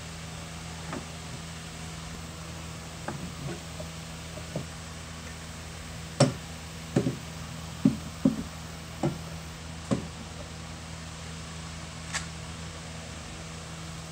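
Wooden knocks and thumps from hands handling a pallet-wood fountain box and setting a small propane cylinder into its corner: a few light taps, then a run of louder thumps in the middle and a sharp click near the end, over a steady low hum.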